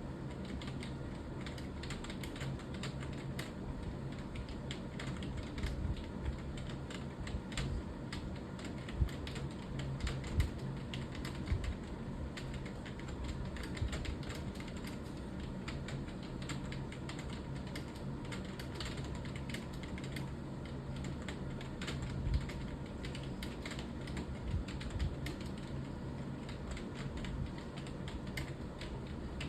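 Fast typing on a computer keyboard: a continuous, irregular stream of key clicks.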